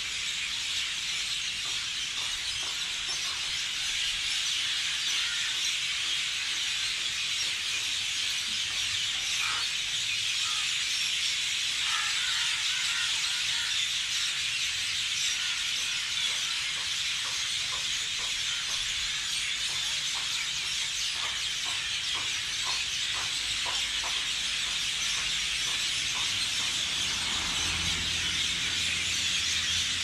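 Dense, steady chorus of high-pitched calls from the tree canopy, with a few separate short calls standing out over it in the middle and later part. A low steady hum comes in near the end.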